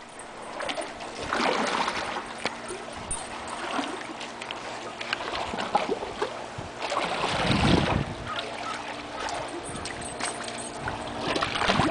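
Swimming-pool water sloshing in waves and splashing over the edge, set rocking by a long rolling earthquake. The splashing swells and falls, loudest about a second and a half in and again around seven to eight seconds in.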